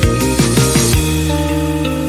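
Background music: an electronic track with a fast beat that drops out about a second in, leaving held chords.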